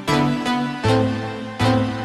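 Keyboard music: sustained chords struck in a steady rhythm, three times, each struck chord fading before the next.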